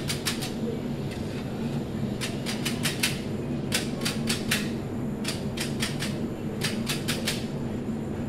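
Long-handled oven tool scraping and knocking on a pizza oven floor as the oven is cleared: runs of sharp clicks, several in quick succession, over a steady low hum.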